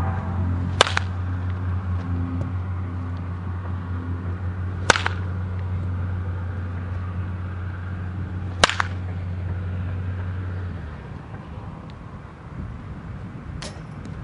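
A wooden baseball bat cracks against a pitched ball four times, about four seconds apart, the last hit weaker. A steady low hum runs underneath and stops about eleven seconds in.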